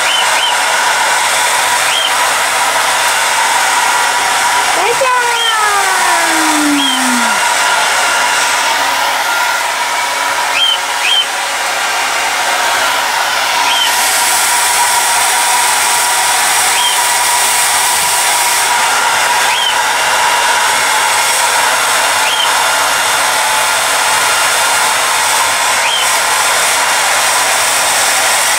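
Hair dryer blowing steadily, an even rushing noise with a steady hum-like tone in it.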